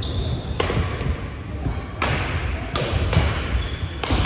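Badminton rally: sharp racket strikes on the shuttlecock, five or so in quick succession, with short high shoe squeaks and footfalls on the wooden court floor.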